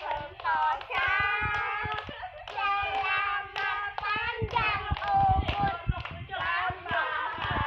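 Voices singing a birthday song, with hands clapping along. The clapping is thickest around the middle.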